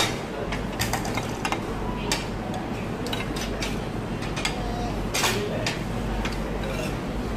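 Light, irregular clicks and clinks of cutlery and plates at a dining table, the strongest about five seconds in, over a steady low background hum.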